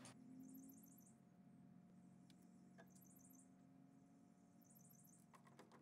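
Near silence: a faint low hum, with two brief runs of faint, rapid high-pitched chirps, one near the start and one near the end.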